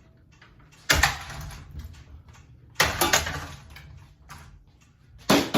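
Three hard blows, about two seconds apart, landing on a ceiling fan that is being smashed. Each is a sharp bang that dies away over about a second.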